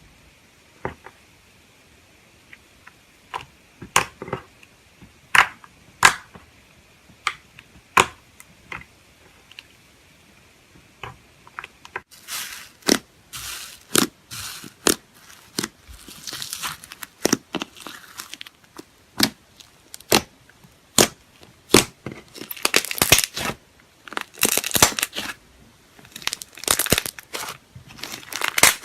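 Slime being pressed and squished, giving scattered sharp pops and clicks at first, then denser runs of crackling from about halfway through.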